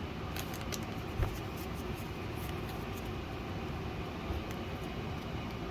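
Steady background hiss with a few faint clicks, the light handling of trading cards from a freshly opened booster pack.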